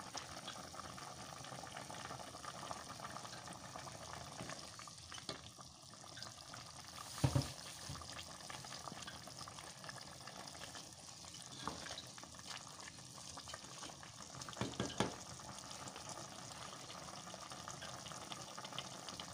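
Meat-and-fish soup stock bubbling steadily in a pot on the stove while a wooden spatula stirs it. There is a sharp knock about seven seconds in and a few smaller knocks around fifteen seconds.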